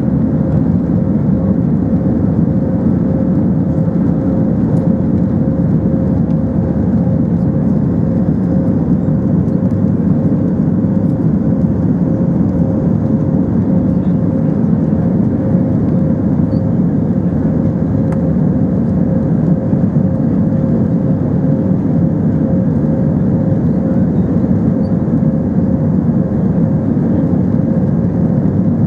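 Steady drone of an Airbus A320's jet engines and rushing airflow heard from inside the aircraft during the takeoff climb, with a faint steady hum above it.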